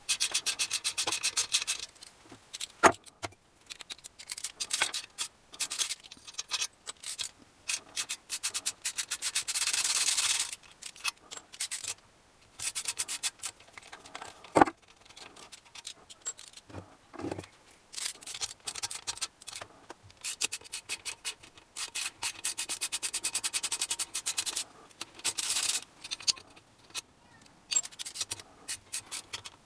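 Rapid back-and-forth rubbing strokes made by hand, coming in runs of one to a few seconds with short pauses between them. Two sharp knocks cut in, about three seconds in and about halfway through.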